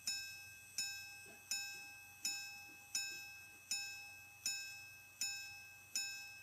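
Swiss sterling silver five-minute repeater pocket watch striking the hours on its gong: nine evenly spaced rings of the same pitch, about three every two seconds, each dying away before the next. These are the hour strikes, here counting twelve for a time of about 12:50.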